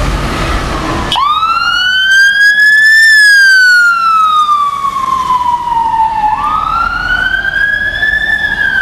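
Ambulance siren cutting in sharply about a second in on a slow wail. It rises for about two seconds, falls for about three, then rises again, and is loudest as the ambulance passes close. A fainter siren wail is heard before it, over low traffic rumble.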